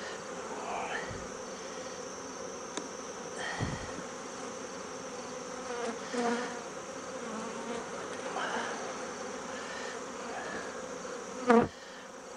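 A colony of honeybees buzzing steadily around an open hive. A few light knocks come as frames are pried and lifted with a hive tool, and there is a brief louder sound near the end.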